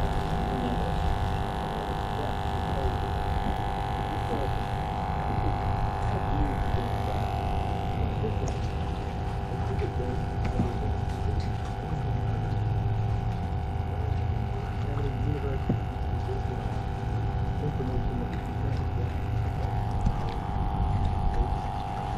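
A steady mechanical hum with a constant higher-pitched tone over it. The tone fades somewhat in the middle and comes back stronger near the end.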